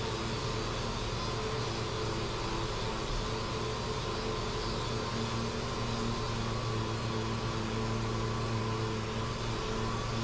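Dual-action (DA) sander running steadily on a plastic car bumper with an even hum, sanding down the high and low spots of a dent repair to make the surface flat.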